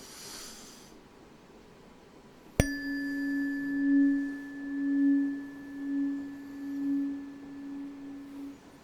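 A low-pitched tuning fork struck once, ringing a steady tone with a faint high overtone; its loudness swells and fades about once a second before it stops shortly before the end.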